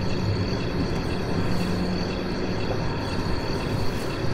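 A car driving, with steady engine and road noise and a low hum throughout.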